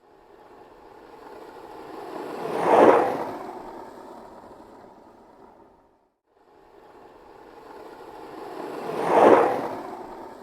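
Skateboard rolling past twice, its wheels growing louder to a peak and then fading away each time, with a brief silence between the two passes.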